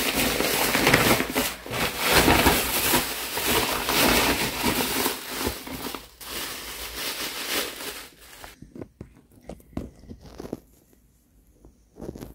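Woven plastic rice sack crinkling and rustling as it is handled and Chinese potatoes (koorka) are tipped into it; dense rustling for about eight seconds, then only a few short rustles and taps.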